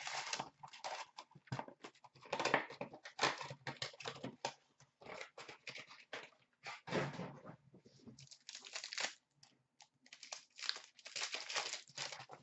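Trading-card box packaging and foil card-pack wrappers being handled and torn open by hand: irregular crinkling and ripping.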